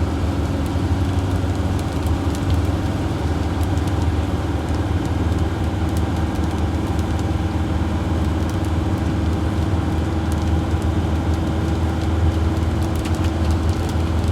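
A Sprinter van running with a steady low drone and scattered light ticks, heard during a test of the freshly tightened windshield wiper mechanism.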